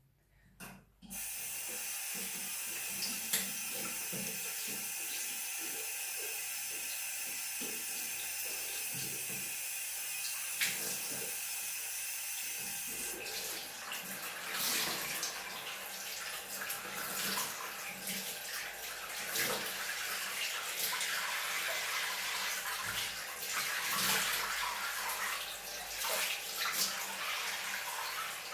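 A bathroom tap running warm water into a sink, starting about a second in. About halfway through the stream turns uneven and splashy.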